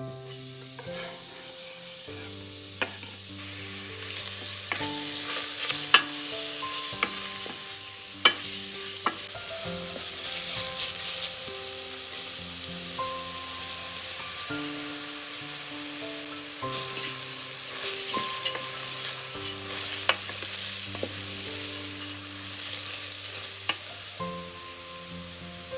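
Food frying in oil in a pan, sizzling, and being stirred, with sharp knocks and scrapes of a utensil against the pan. The sizzle grows louder about four seconds in. Quiet background music plays underneath.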